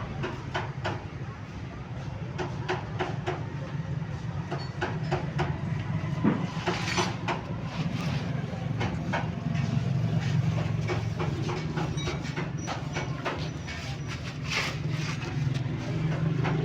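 A vehicle engine running steadily, with many irregular sharp clicks and knocks over it.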